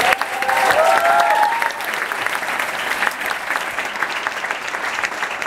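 Audience applauding steadily with dense clapping at the end of a speech. A few short cheers rise over it in the first couple of seconds.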